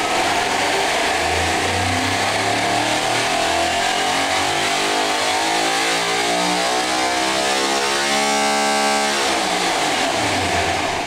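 Big-block V8's valvetrain being motored on a Spintron with no combustion, during a valve-spring test. The spin-up runs as a steady mechanical whine that climbs in pitch for about eight seconds, holds briefly at the top, then winds down near the end.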